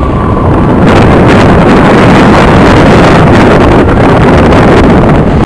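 Strong wind buffeting the camcorder's microphone as a loud, rumbling, rushing noise. It gets louder about a second in and cuts off abruptly when the recording ends.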